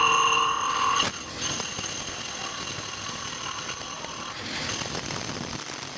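Metal lathe cutting a bicycle wheel hub: the tool against the spinning metal gives a steady high-pitched ringing whine over machine noise, its pitch shifting abruptly about a second in and again past four seconds.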